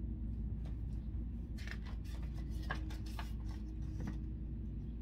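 Paper pages of a picture book being handled and turned: a cluster of short, crisp rustles and crackles from about a second and a half in to about three and a half seconds, over a steady low hum.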